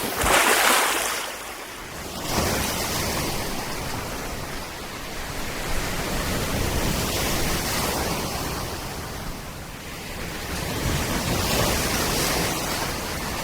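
Sea waves washing onto the shore, a steady rushing that swells and eases every few seconds.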